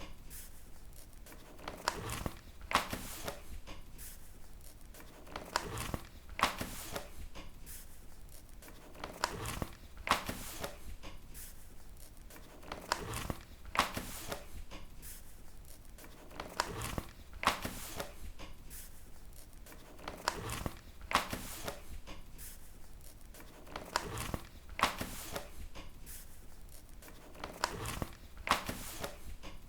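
Paper pages being turned one after another, a quick papery flip about every three and a half seconds with softer rustling between.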